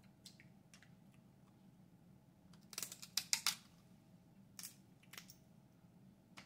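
Snow crab leg shells snapped and cracked apart by hand: a quick run of sharp cracks about three seconds in, then two more single snaps.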